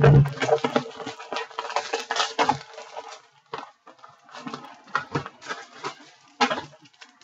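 Hands handling trading cards and card packs on a tabletop: an irregular run of taps, clicks and light rustles as cards are shuffled, set down and tapped square, with the sharpest knock right at the start.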